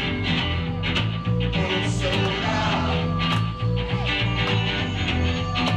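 Live band playing a rock song without a clear vocal line: a repeating bass line, regular drum hits and sustained higher notes above them.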